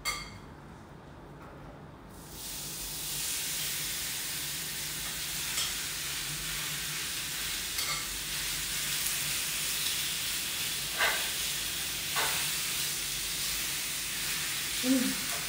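Raw steak going into a hot skillet: sizzling starts suddenly about two seconds in and keeps on steadily, with a couple of light knocks near the end.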